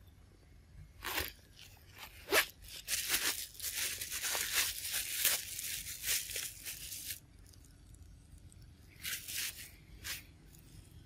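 A macaque tearing and biting into a ripe mango's skin: crunching, tearing sounds in short bursts, a dense run of them in the middle, and two more bites near the end.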